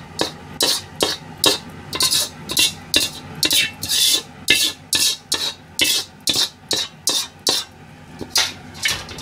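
Metal ladle scraping and knocking inside a black iron wok, about three quick strokes a second, as the last fried rice is scraped out onto a plate. The food slides off the well-seasoned wok surface without sticking.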